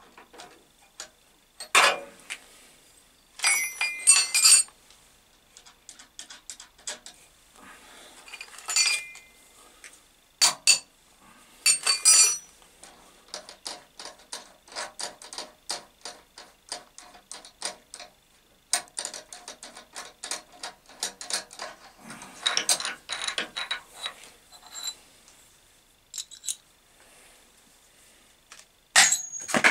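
Steel chuck, arbor and drill spindle being handled and fitted together: sharp metallic clinks and knocks with a brief ring, and a long run of light, quick ticking clicks through the middle.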